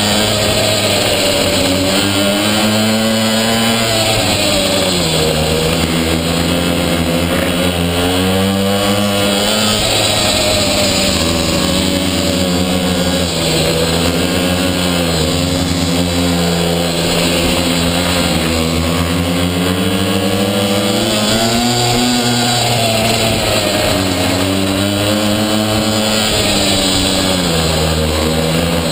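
Pocket bike's small two-stroke engine, heard from on board, revving up and easing off again and again as the throttle is opened and closed through the turns.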